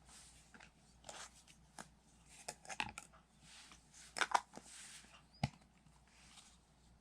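Small plastic toy kitchen pieces being handled: scattered light clicks, taps and rustles, with a cluster of sharper clicks about four seconds in and a single sharp tap a little after five seconds.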